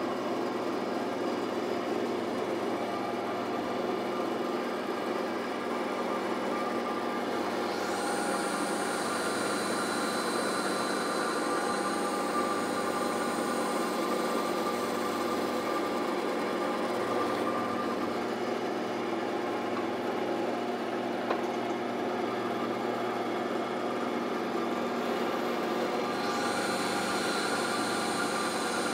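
Bandsaw running steadily while its blade cuts angled dovetail tails into a thick wooden board. The sharper hiss of the blade in the wood comes in twice: from about a quarter of the way in to past the middle, and again near the end.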